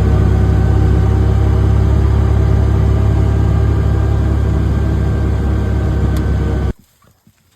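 Vehicle engine running steadily with a low drone, cutting off suddenly near the end.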